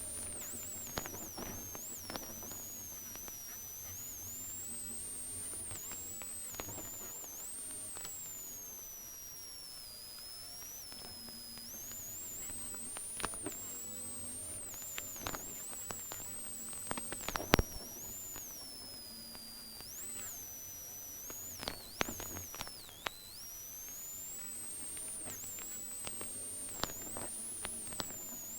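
Faulty GoPro audio: thin high-pitched whining tones that drift up and down, over a faint hum, with scattered clicks and pops, the loudest about halfway through. The recording has lost the ordinary sound of the rally car.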